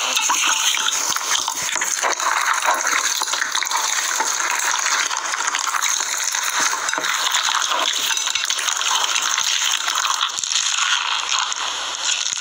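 Slime mixed with small foam beads being squeezed and kneaded by hand: steady wet squishing, with many small crackling clicks and pops.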